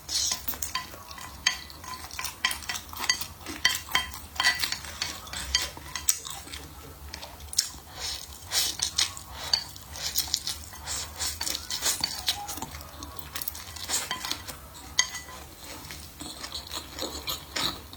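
Eating utensils clinking and scraping against a bowl or plate in quick, irregular small clicks, as food is picked up and eaten.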